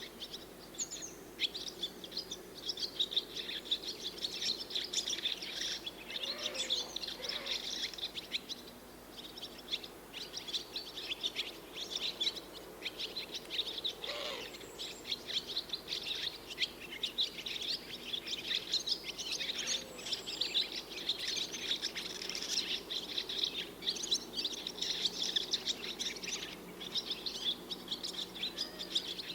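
Swallows twittering continuously, many quick chirps overlapping with hardly a pause, over a faint steady low background hum.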